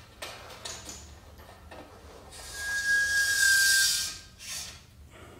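A few light clicks as aluminium frame parts are handled. Then a loud hissing scrape with a steady high squeal through it lasts about two seconds, and a shorter scrape follows.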